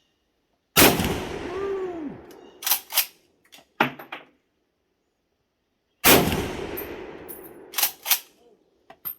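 Two shots from a Swiss Schmidt-Rubin straight-pull rifle in 7.5×55 Swiss, about five seconds apart, each with a long echoing tail. After each shot come a few sharp metallic clacks as the straight-pull bolt is worked straight back and straight forward.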